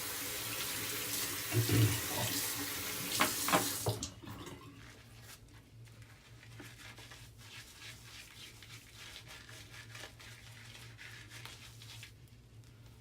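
A water tap running into a bathroom sink, with a couple of sharp knocks while it runs, shut off about four seconds in; faint small rustling sounds follow.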